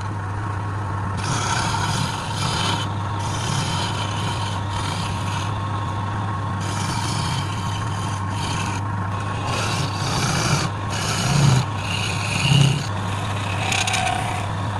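Wood lathe motor running with a steady low hum, as a turning tool cuts the spinning wood in on-and-off scraping passes about a second long. Two brief, louder low thumps come about two-thirds of the way through.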